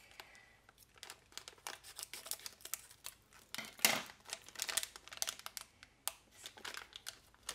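Crinkling of a plastic Disney Delectables blind bag being handled and turned over in the hands, in short irregular rustles, the loudest a little before four seconds in.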